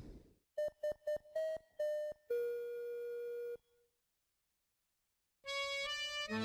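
Short electronic keyboard melody: a few quick notes, then one held note that cuts off, a pause, and a new run of notes leading into fuller music.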